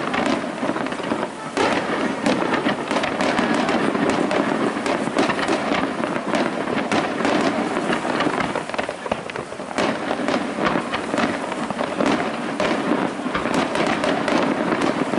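Aerial fireworks display: shells bursting in a dense, rapid string of overlapping bangs and crackles with no pause.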